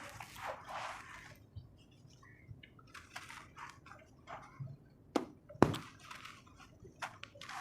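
Soft, crunchy chunks of red sand-cement being crushed and crumbled by hand: scattered soft crunches and crackles, with two sharper snaps a little after halfway.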